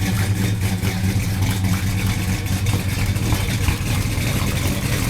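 Chevrolet Impala's engine idling steadily through its exhaust, with a fast even pulse and no revving.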